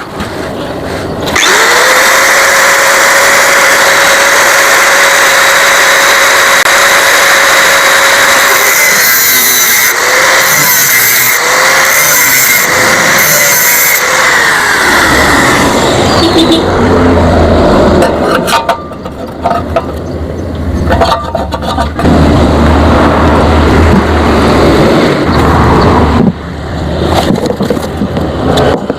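Electric angle grinder spinning up about a second in and cutting into a steel motorcycle exhaust. Its steady whine dips several times under load before it winds down about halfway through. A low rumble and a run of sharp knocks follow.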